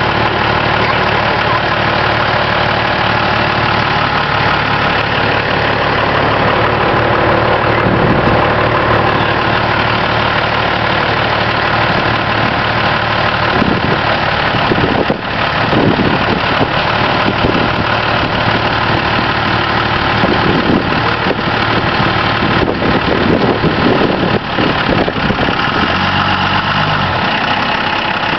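Pickup truck engines running, a Dodge Ram stuck in mud and a second pickup hitched to it with a tow strap. The engine note wavers, rising and falling several times in the second half, as they work to pull the Ram free.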